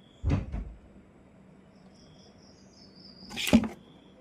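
Two handling clunks, about a third of a second in and again near the end, the later one louder and rattling, as an inverter's plug and wiring are worked on by hand. Crickets chirp faintly in the background.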